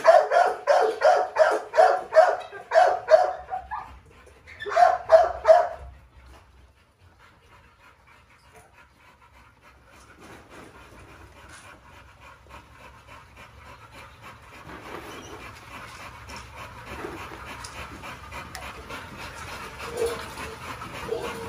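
A dog barking in a fast, even run of about three barks a second, then a short second run of four barks about five seconds in. After that there is only faint, low background noise, with a few weak yelps near the end.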